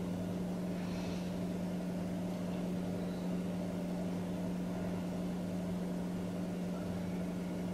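A steady low hum over faint hiss: room tone.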